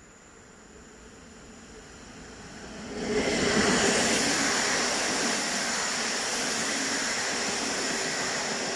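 An electric locomotive-hauled PKP Intercity passenger train approaches, growing steadily louder. About three seconds in it reaches the platform with a sudden rush, and the coaches keep rolling past with a loud, steady noise of wheels on rail.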